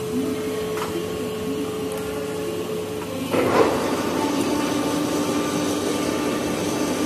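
Gurutzpe Super AT 3000/400 lathe running, its headstock gearing and spinning chuck giving a steady mechanical hum. About three seconds in there is a short clatter, after which the hum settles on a lower tone and runs a little louder.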